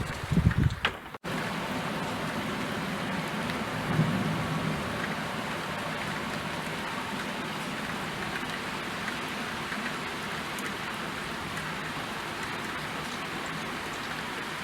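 Steady rain, an even hiss of drops. There are loud low rumbles in the first second, then the sound drops out for an instant and the rain resumes, with a short low swell a few seconds later.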